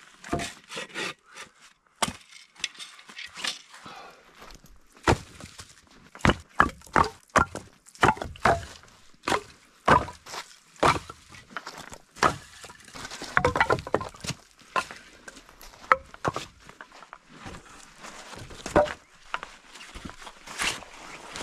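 Chopping firewood with a hatchet: a long run of sharp, irregular chops of the blade striking dry wood, about one or two a second, with a few knocks of wood pieces against each other.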